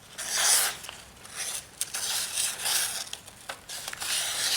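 Emerson Mini Commander folding knife being tried for sharpness: several rough, crinkling slicing strokes through a thin material.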